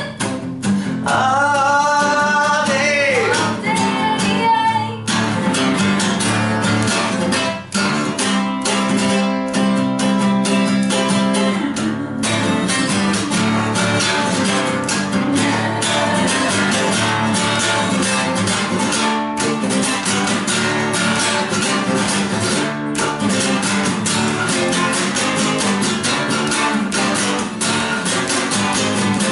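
Acoustic guitar strummed steadily in a rock rhythm, with a voice singing over the first few seconds.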